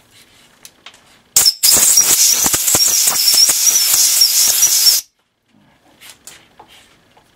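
Compressed-air blow gun blasting air over the mill table for about three and a half seconds, a loud hiss with a brief break just after it starts and light ticks through it, then cutting off suddenly.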